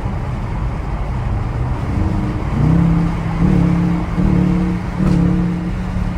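Car engine revving in four short bursts over steady road rumble, each burst climbing quickly in pitch and then holding for under a second.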